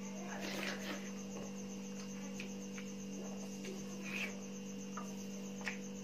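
Steady electrical hum, with a short rustle about half a second in and a scattering of brief clicks and smacks from eating by hand out of a steel bowl.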